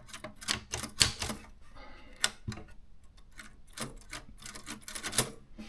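Manual typewriter mechanism being worked by hand: an irregular run of sharp clicks and clacks, a few louder than the rest.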